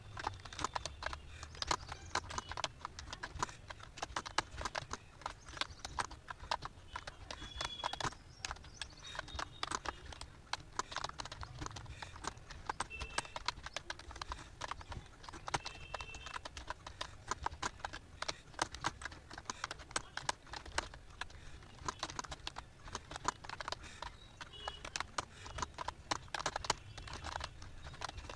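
Computer keyboard being typed on fast and without pause: a rapid, irregular run of key clicks.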